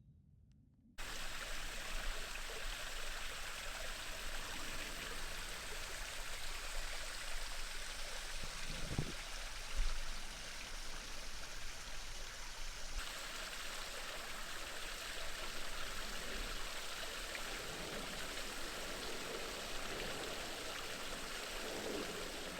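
Steady rush of running water, starting abruptly about a second in and changing slightly in tone about twelve seconds in.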